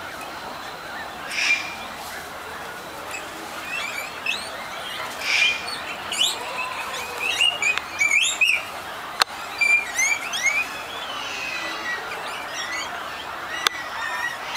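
A group of guinea pigs squeaking, with many short rising and falling high-pitched squeaks overlapping, busiest in the middle, and a louder squawk about five seconds in.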